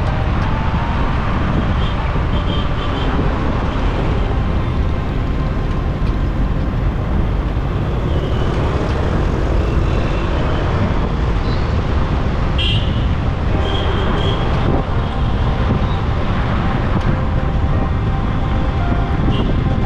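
Car driving through city traffic: steady road and engine rumble, with a few short vehicle horn toots.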